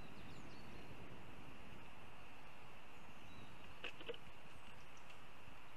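Steady outdoor background hiss at a northern goshawk nest, with faint small-bird chirps near the start. About four seconds in, a short cluster of three quick sharp sounds comes as the adult goshawk launches off its perch and flies away.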